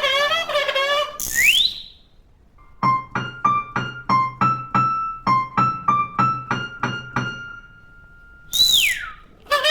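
Early sound-cartoon music and effects: a wavering, vibrato-laden tone, then a quick rising whistle glide. After a short pause comes a run of about fifteen quick piano notes ending on a held note, and a falling whistle glide near the end.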